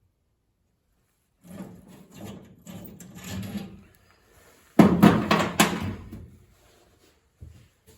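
Tools and parts being handled: irregular knocking and rattling, with a loud cluster of sharp knocks about five seconds in.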